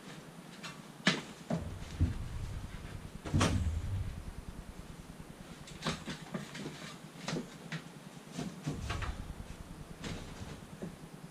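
Irregular knocks and clunks of building work, a dozen or so separate hits, with the loudest in the first four seconds.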